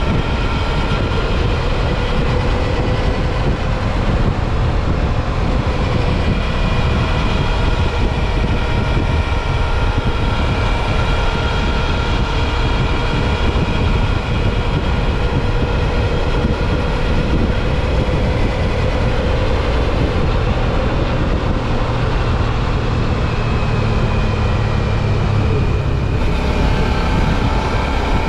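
Suzuki V-Strom 650 XT's V-twin engine running at a steady cruise, under a loud, steady rush of wind on the microphone while riding.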